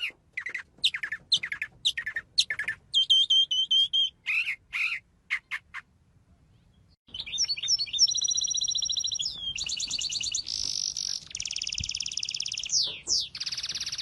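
Songbirds calling and singing. First comes a series of short, falling chirps about twice a second. After a brief pause about six seconds in, fast trills and buzzy song follow without a break.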